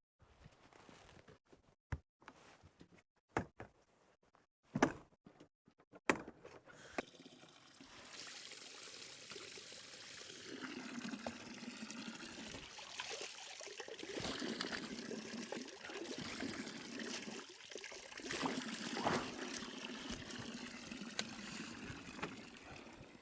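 Mountain spring water trickling and pouring steadily, as water is collected from it; it starts about seven seconds in and grows louder. Before it come a few sharp thuds, the loudest of them about five and six seconds in.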